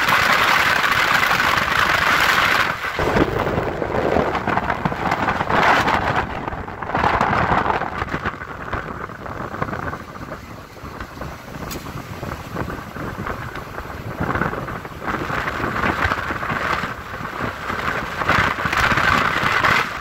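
Road and wind noise of a car driving: a steady rushing hiss that swells and eases, quieter about halfway through.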